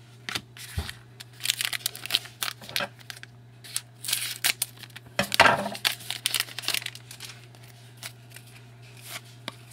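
Trading cards and their packaging being handled: irregular crinkling and rustling with short card-sliding strokes, a louder stretch about five seconds in, over a steady low electrical hum.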